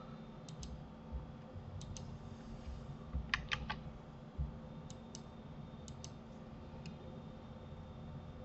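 Scattered clicks of a computer keyboard and mouse: about a dozen single clicks, with a quick run of three about three seconds in, over a low steady hum.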